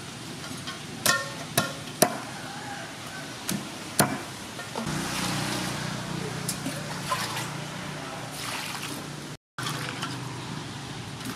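A large knife chopping lemongrass stalks on a wooden chopping board, a few sharp chops in the first four seconds. Then hands swishing and rinsing leafy greens and lemongrass in a metal basin of water.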